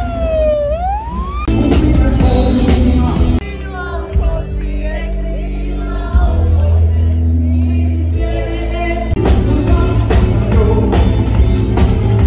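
Ambulance siren wailing, its pitch sliding down and then back up, cut off abruptly about a second and a half in. Loud music follows, changing abruptly several times, ending on a live band.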